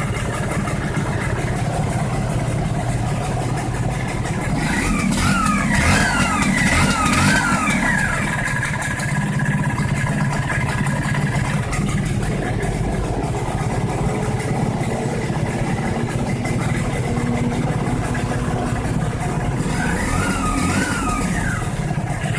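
Two-stroke 125 cc motorcycle engine running at idle, revved up and down in a few quick blips about five seconds in and again near the end. There is no loud da-da-da piston-ring tapping, which an expander ring fitted in the second ring groove has quieted.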